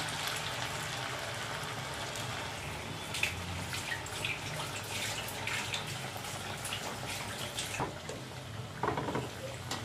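Semolina, potato and carrot patty deep-frying in hot oil in an aluminium kadai: a steady sizzle with scattered pops and crackles. A short pitched sound near the end.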